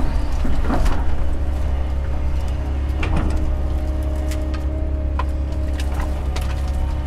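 Doosan excavator working, its diesel engine running with a steady low drone and a steady hydraulic whine, with a few sharp clanks and knocks from the bucket and arm.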